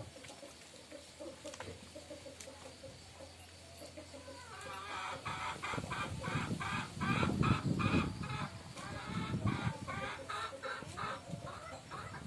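Chickens clucking: quiet at first, then from about four seconds in a quick run of short, repeated clucks.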